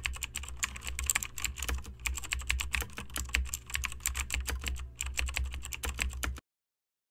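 Rapid computer-keyboard typing, many irregular clicks a second over a low hum, stopping abruptly near the end.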